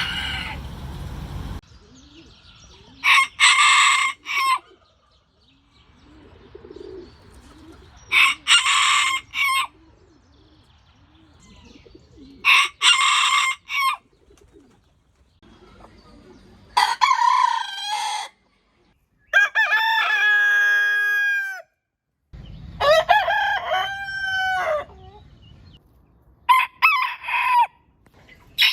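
Ayam ketawa roosters crowing: about seven separate crows a few seconds apart, one of them breaking into a rapid stuttering run of short falling notes, the laugh-like crow this breed is kept for.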